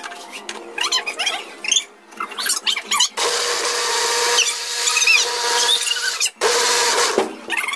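Electric blender motor running with a steady whine, blending a liquid mixture. It starts about three seconds in, cuts out briefly near the end, then runs again for a moment. Before it starts there are excited high-pitched voices and laughter.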